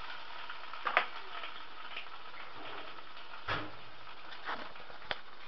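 A spatula clicking and scraping against a frying pan a few times, the loudest about a second in, over a steady low hiss.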